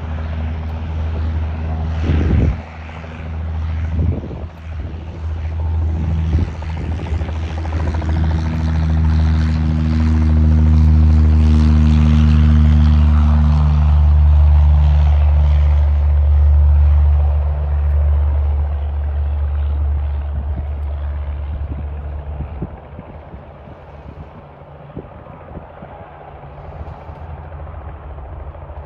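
Cessna 172N Skyhawk's four-cylinder Lycoming engine and propeller at full takeoff power, a steady low drone that grows loudest about halfway through as the plane passes. It then fades as the plane climbs away, dropping off sharply a little past twenty seconds in.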